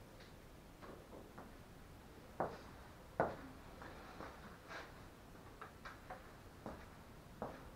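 Faint, irregular clicks and light taps, like small hard objects being handled; the loudest knocks come about two and a half and three seconds in.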